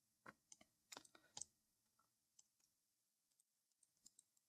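Near silence with a few faint clicks from a computer mouse and keyboard. They come in a quick cluster in the first second and a half, with one more near the end.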